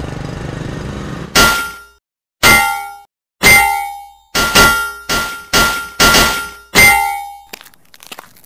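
Motorcycle engine running steadily, cut off after about a second. Then eight loud, ringing metallic clangs of axe blows striking rock follow, about half a second to a second apart. Faint scratchy sounds come near the end.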